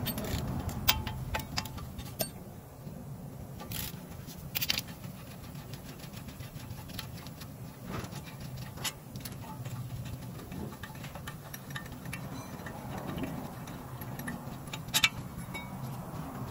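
Ratchet wrench clicking and small metal clinks and knocks as a front brake caliper bracket is unbolted and pulled off the disc brake, over a steady low hum.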